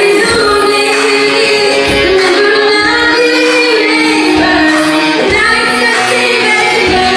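Live music with a woman singing over held instrumental notes, loud and continuous.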